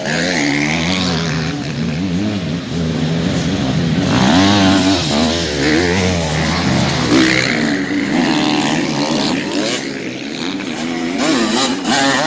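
Several enduro dirt bikes climbing a dirt hill, their engines revving up and down in overlapping pitches as the riders work the throttle and pass close by.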